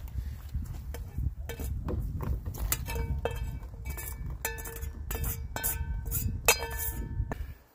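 Knife and fork on a plate while cutting and eating a steak dinner: scraping and tapping, then in the second half a run of ringing clinks repeated several times, over a low rumble.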